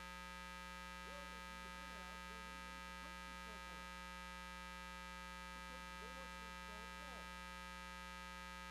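Steady electrical hum and buzz, with a faint, distant voice speaking off-microphone underneath it.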